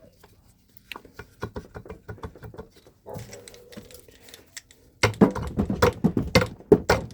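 Quick, irregular clicks and knocks of metal parts being worked on a two-stroke engine, sparse at first and much louder and busier from about five seconds in, as the stuck cylinder is worked loose.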